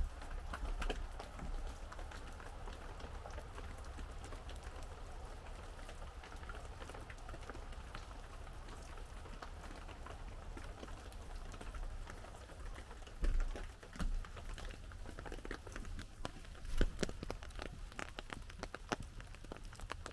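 Rain pattering steadily on an umbrella canopy, with many fine drop ticks and a few louder knocks in the second half.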